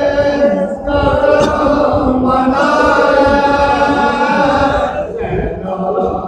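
Men's voices chanting a noha, a Shia mourning lament, in unison: a lead reciter and his chorus hold long, wavering notes.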